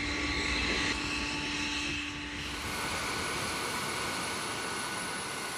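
An F-22 Raptor's twin Pratt & Whitney F119 turbofan engines running with a steady whine as the jet taxis. About two and a half seconds in, the whine's tones drop away, leaving a steady jet hiss.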